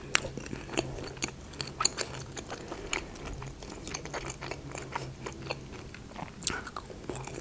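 Close-miked chewing of a breaded, fried mozzarella stick: crisp crunches and wet mouth clicks, over a low steady hum that fades out near the end.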